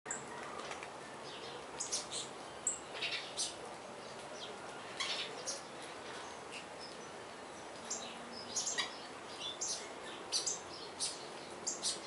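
A flock of saffron finches feeding on the ground, giving short, sharp chirps in scattered bursts.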